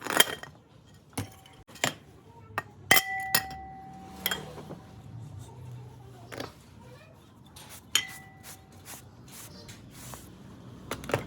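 Metal tools and parts being handled during a ceiling fan repair: a string of sharp clinks and taps, two of which ring on briefly like struck metal, about three seconds in and again near eight seconds.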